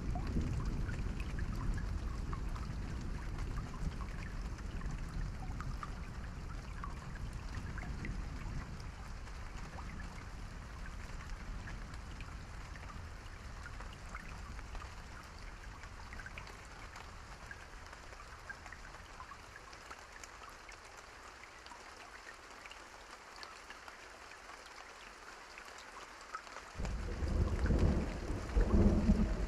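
Steady rain falling, with a low rumble of thunder slowly dying away. Near the end a sudden, loud clap of thunder breaks in and rumbles on.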